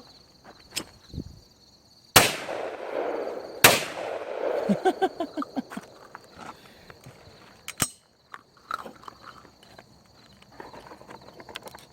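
Two 12-gauge shotgun shots fired at a thrown clay, about a second and a half apart, each trailing off in a long echo.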